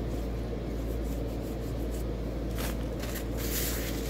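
Hands rubbing together, with a short dry rustle about two and a half seconds in and a longer one near the end, over a steady low hum.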